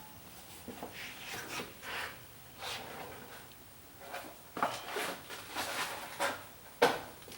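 Faint handling noises of small parts being moved about: soft rustles and light knocks, with a sharper click near the end.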